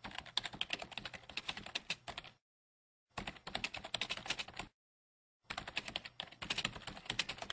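Rapid keyboard typing clicks in three runs of about two seconds, with silence between them, each run timed to a line of on-screen text being typed out letter by letter.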